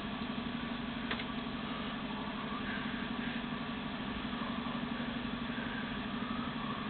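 A steady low mechanical hum with a fine, even pulsing, like an idling motor, with a single click about a second in.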